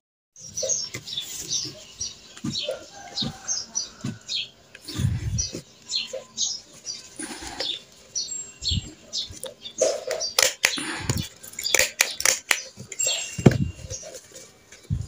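Birds chirping over and over in short high calls, with banana leaves rustling and crinkling as they are folded and handled, and a cluster of sharp clicks about ten to twelve seconds in.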